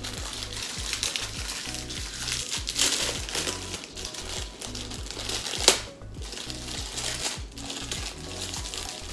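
Foil Pop-Tart wrapper crinkling as it is pulled open and handled, with one sharp crackle a little past halfway, the loudest moment. Background music plays underneath.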